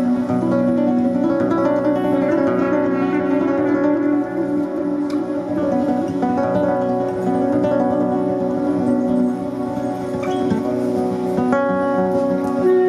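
Music: a plucked string instrument, guitar-like, picking notes over steady held tones.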